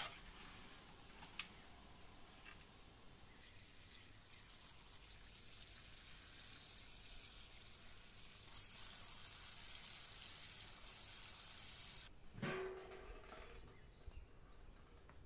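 Water from a garden hose pouring onto herbs packed in a large steel pot, a faint steady splashing. About twelve seconds in it stops and there is a knock with a short ring.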